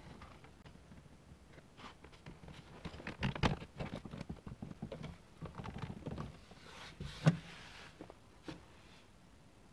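Light knocks, taps and scuffs of a Mk2 Ford Escort's vinyl dash trim panel being pressed into place on the dashboard by hand, with one sharper knock about seven seconds in.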